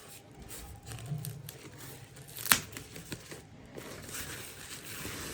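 Packaging being torn open and crumpled by hand as a speaker is unwrapped: irregular crinkling and rustling, with one sharp click about two and a half seconds in.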